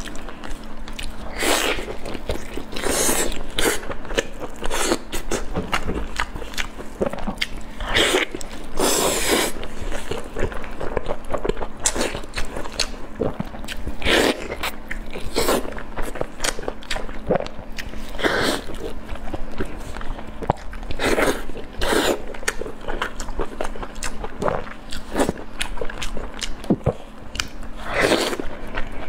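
Close-miked eating: wet biting, chewing and smacking as sauce-glazed meat is torn apart by gloved hands and bitten, in irregular bursts every second or so.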